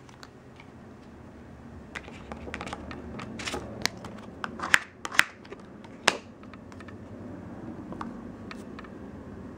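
Plastic gift card scraped across a metal nail stamping plate to clear off excess nail polish: a few taps and clicks, then several short, sharp scrapes in the middle, with a last click about six seconds in.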